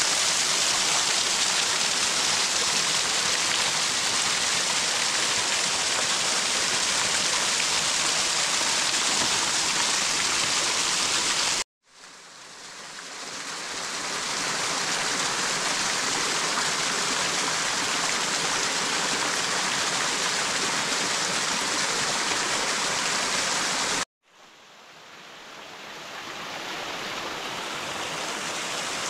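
Small mountain waterfall: thin streams of water falling over a rock ledge and splashing onto rock and wet leaves in a steady, even rush. The sound cuts out twice and fades back in, at shot changes to wider views of the stepped cascade.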